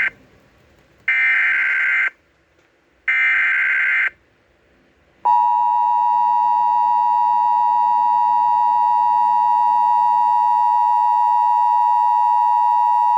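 Emergency Alert System broadcast signal for a severe thunderstorm warning: two harsh one-second buzzing SAME header data bursts about a second apart, then from about five seconds in a loud, steady attention tone held for about eight seconds.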